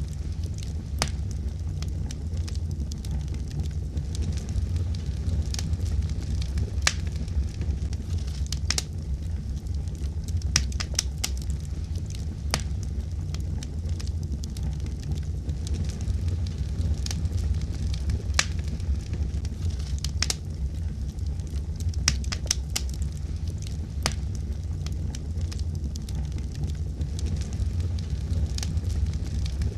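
Wood fire burning with irregular sharp crackles and pops over a steady low rumble of flame.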